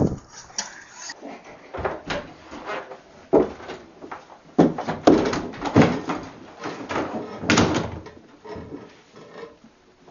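A glass door being opened and shut, with a string of irregular knocks and bumps.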